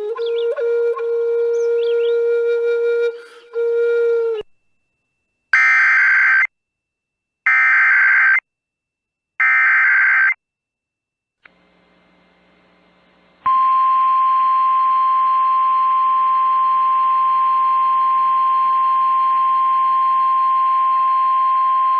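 A few seconds of music end, then come three one-second bursts of Emergency Alert System SAME header data tones, which encode the alert, then a short pause. After that comes the steady 1050 Hz NOAA Weather Radio warning alarm tone, held for about nine seconds, which signals a warning such as this winter storm warning.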